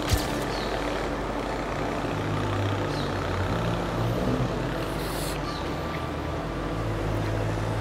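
Road traffic on a busy city avenue, with a heavy vehicle's engine running close by and changing pitch. There is a sharp click right at the start and a short burst of hiss about five seconds in.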